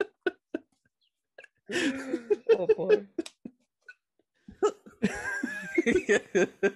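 Men laughing: a few short breathy bursts, then longer bouts of laughter about two seconds in and again from just before the five-second mark.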